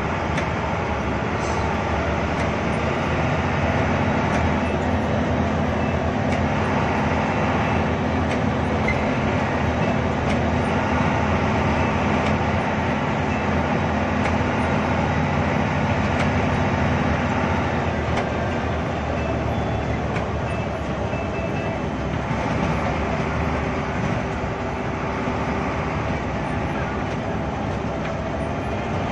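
Hino AK8 bus engine heard from inside the cabin, running steadily under way at road speed, with a constant hiss of road noise from the wet road. The engine note holds steady through the first half and eases somewhat past the middle.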